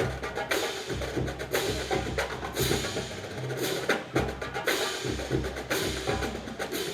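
Marching drumline playing a rhythmic passage: deep pitched bass drum strokes under sharp snare and stick hits.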